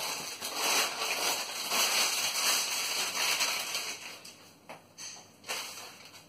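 Packaging crinkling and rustling as it is handled, a dense crackle for about four seconds, then a few short rustles near the end.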